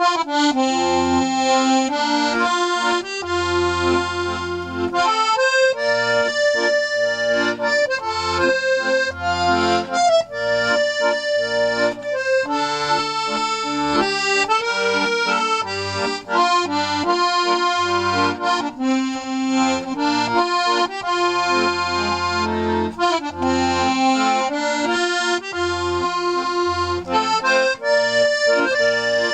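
72-bass piano accordion, freshly restored, playing a Scottish folk tune: a right-hand melody over the left-hand bass notes and chords.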